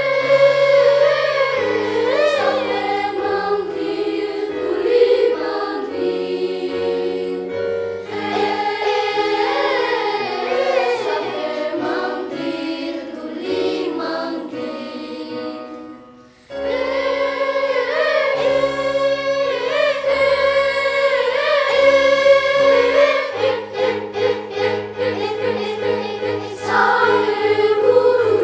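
Elementary school children's choir singing in parts. The sound breaks off for a moment about halfway through, then the singing comes back in full.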